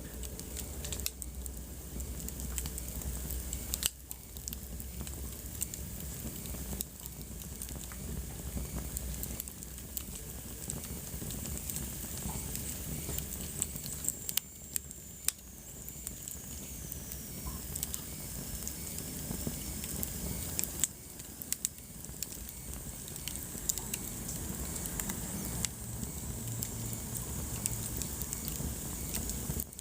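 Wood fire burning in a fireplace: a steady hiss with frequent sharp crackles and pops. A faint high whistle falls slowly in pitch about halfway through.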